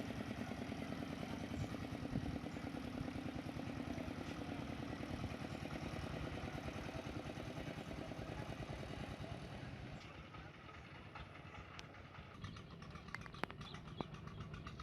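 A small engine running steadily with a fast, even chugging, loudest for the first ten seconds and then fainter, with a few scattered clicks near the end.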